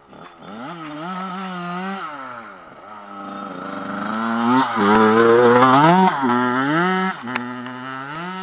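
Dirt bike engine revving as it rides past: the pitch climbs and drops back several times, and it is loudest about halfway through as it goes by closest.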